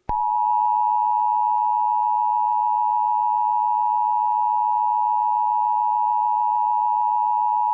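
Emergency Alert System attention signal: a steady electronic two-tone alert (853 and 960 Hz) that comes on abruptly and holds unbroken.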